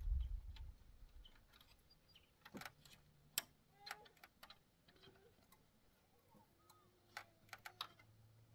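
A low rumble fading out in the first second, then sparse light clicks and knocks, three of them close together near the end.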